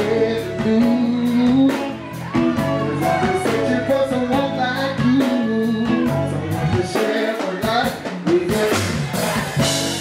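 Live band music: a male lead singer over drums and electric guitar.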